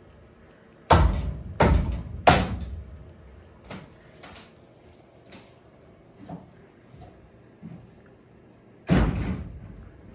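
Heavy bangs and knocks of demolition work in a gutted room: three loud bangs in quick succession about a second in, fainter knocks after them, and another loud bang near the end. Each bang rings on briefly in the empty space.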